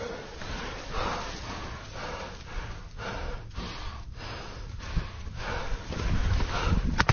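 Heavy, fast breathing close to the microphone. Right at the end a quick burst of gunfire starts.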